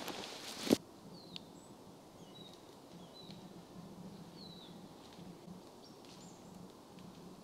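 Footsteps crunching on the damp forest floor for the first moment, cut off by one sharp snap; then quiet woodland ambience with a few thin, high, short bird chirps scattered through it.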